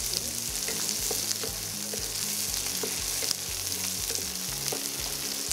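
Shallots, curry leaves and whole spices sizzling in hot oil in a non-stick kadai, stirred with a wooden spatula that scrapes and taps the pan now and then.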